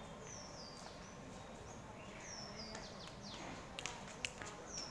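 Quiet background ambience with a bird repeating a short, high call that falls in steps, several times a second or two apart. A few sharp clicks come about four seconds in.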